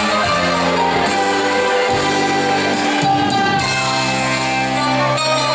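A live band of electric guitar, bass guitar, keyboards and drums playing the instrumental introduction of a ballad, with sustained chords changing every second or so.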